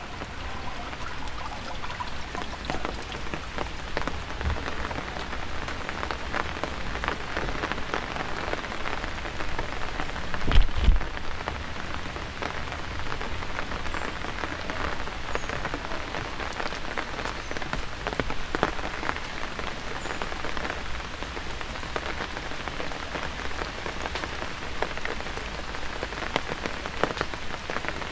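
Steady rain, a dense patter of individual drops ticking close by. About ten seconds in there is a brief low thump, the loudest moment.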